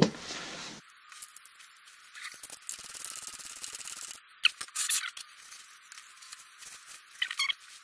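Hand socket ratchet clicking as the transfer case fill plug is run back in and tightened, followed by a rag rubbing over the case, with a few sharper clicks and scrapes.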